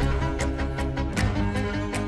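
Background music: held string tones over a light, steady beat ticking about twice a second.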